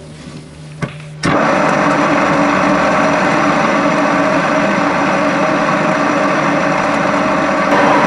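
Pillar drill press running, a long thin twist bit boring a small hole into a wooden strip. The motor sound starts abruptly about a second in and then runs steadily with a steady hum and whine.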